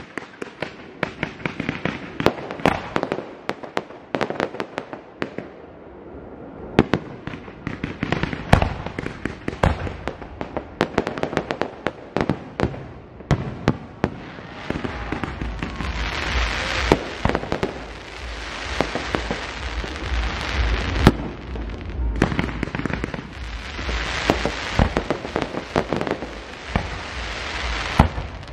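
Aerial firework shells bursting, a rapid run of sharp bangs. About halfway through the bursts thicken into a dense, near-continuous barrage with a deep rumble underneath.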